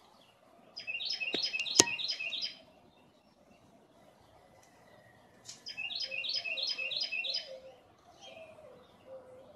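A songbird singing two bursts of rapid repeated high notes, each lasting about one and a half to two seconds, with a pause between them. Two sharp clicks fall in the first burst.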